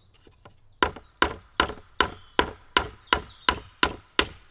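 Back of a hatchet hammering a small galvanized nail through a green ash shingle into a wooden pole batten. Two light taps, then about a second in a steady run of ten sharp blows, nearly three a second.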